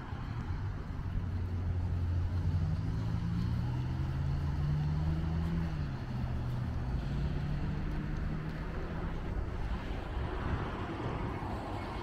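A motor vehicle passing on the road. Its low engine note climbs, drops once about halfway through, then fades, over faint traffic hiss.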